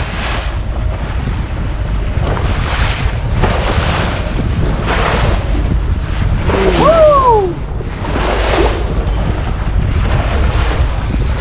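Wind buffeting the microphone over the rush of water and wake around a small boat under way in open-ocean chop, with a steady low rumble and a wash that swells and fades every second or so. About seven seconds in, a short cry rises and then falls in pitch.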